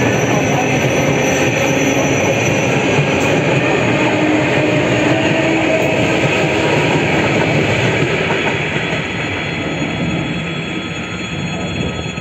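ED4M electric train running past close by, its wheels rumbling over the rails with a few short whining tones. The sound eases off from about two-thirds of the way in as the last car goes by.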